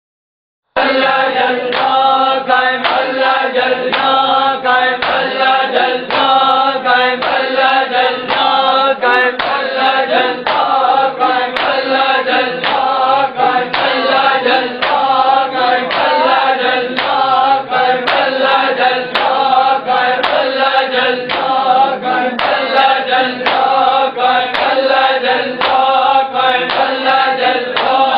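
Group of men chanting a Punjabi noha in unison, with chest-beating (matam) striking an even beat about twice a second. It starts suddenly about a second in.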